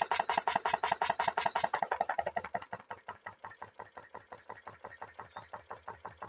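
Home-built hot-air Stirling engine with diaphragm pistons running, a fast, even knocking at about nine or ten beats a second that gets quieter about two seconds in while keeping the same pace. It keeps running even with its air-release hole open: the controls will not stop it, which the builder puts down to slight air leaks in the engine.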